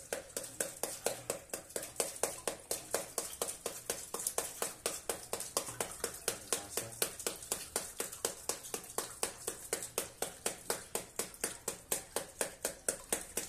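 A wooden rolling pin beating a Kent water purifier's spun sediment filter cartridge under running tap water, in quick, even knocks about four a second. The strikes shake the caked dirt and silt out of the clogged filter.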